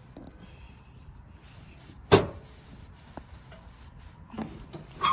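T-handle insert tool forcing a tire repair plug into the nail hole of a tubeless tire: quiet rubbing and handling noise, with one sharp knock about two seconds in and a few softer knocks near the end.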